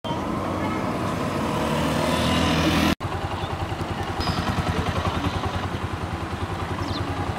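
Small motorcycle engine running, growing louder as it comes closer. After a sudden cut about three seconds in, it runs on with a quick, even putter.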